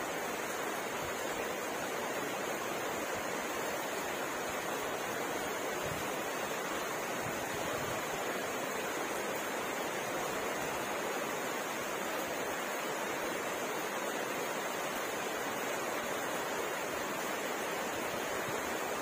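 Steady rain falling, an even hiss without breaks or single drops standing out.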